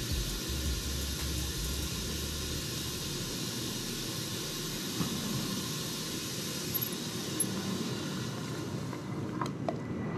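Steady hiss of compressed air through a leak-down tester pressurising a V8's cylinder, with a few light clicks near the end.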